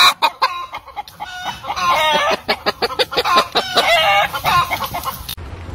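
Hen on her nest clucking in a quick run of short calls, with a few longer drawn-out calls, as a hand reaches under her. The calls stop abruptly near the end.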